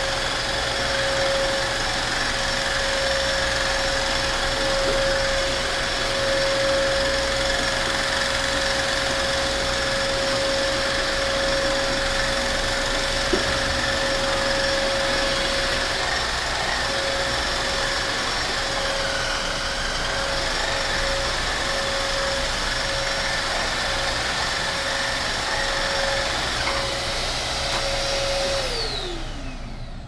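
Hoover Streamline FH46000 wet-dry floor cleaner running steadily, a constant motor whine over suction noise. Near the end it is switched off and the whine falls away as the motor spins down.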